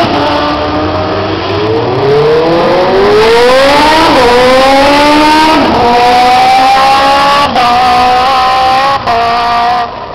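Drag-racing vehicle's engine accelerating hard down the strip. Its pitch climbs and drops back at each upshift, with two sharp drops and then two smaller ones, and the sound falls away just before the end.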